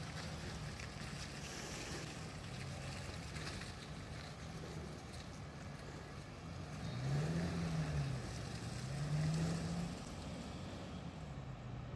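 Diesel multiple unit's underfloor engines running as the train rolls slowly into the platform. The engine note swells and falls about seven seconds in, then rises again shortly before it settles back.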